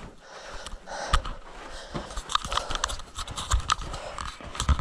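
Footsteps crunching and scuffing on rocky ground, with many irregular sharp clicks, and panting breath between them.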